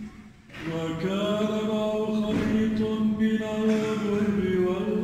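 A choir singing a slow liturgical chant in a reverberant church. The singing comes back in about half a second in, with long held notes moving in steps.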